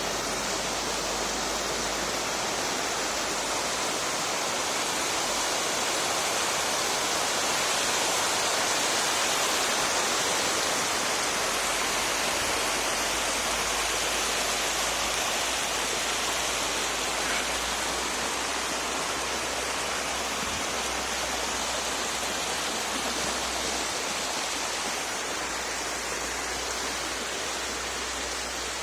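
Waterfall rushing: a steady, even wash of falling water that swells a little near the middle.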